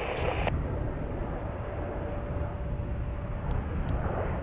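Gusting wind buffeting an outdoor microphone, a continuous low rumble. About half a second in, the end of an air traffic control radio transmission from a scanner cuts off.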